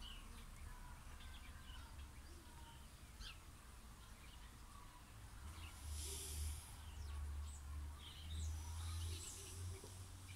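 Faint outdoor ambience: scattered short bird chirps over a low rumble that grows louder through the middle of the clip, with a brief hiss about six seconds in.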